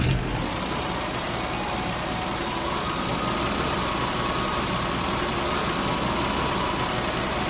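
A vehicle engine running steadily at an even pitch. It starts abruptly right after a brief silence.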